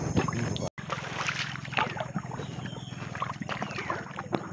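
Wooden paddle strokes dipping and splashing as a small canoe is paddled through still marsh water, with light knocks against the hull, over a steady low hum.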